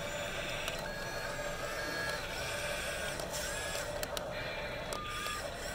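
Small geared electric motors of a Yigong toy RC excavator whining in short runs as the boom lowers and the upper body swings, with a few clicks.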